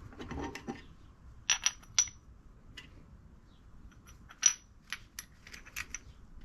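A run of light metallic clinks and taps, several with a short high ring, from the parts of a split motorcycle engine crankcase being handled.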